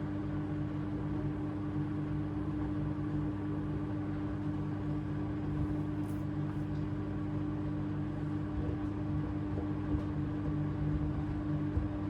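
AEG 8000 Series front-loading washing machine running, a steady hum holding one pitch over a low rumble.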